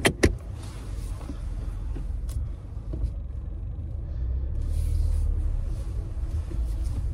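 Low, steady rumble of a car heard from inside the cabin while driving, growing a little stronger about halfway through. Two sharp clicks come right at the start.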